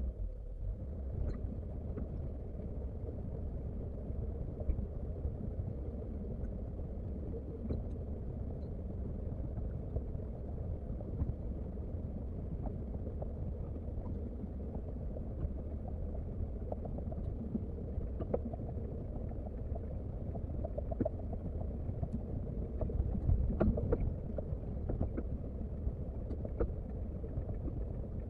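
Komatsu excavator's diesel engine running as a steady low rumble, with occasional brief knocks and clanks, a little louder for a moment about three-quarters of the way through.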